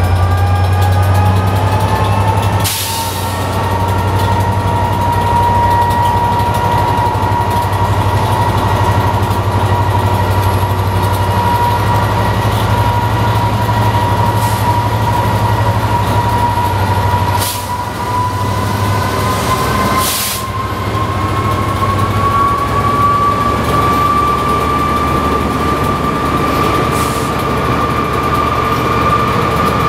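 Class 67 diesel-electric locomotive pulling away from a station under power: the low rumble of its EMD two-stroke V12 diesel under load, with a whine that climbs steadily in pitch as the train gathers speed. Three brief sharp clicks come about 3, 17 and 20 seconds in.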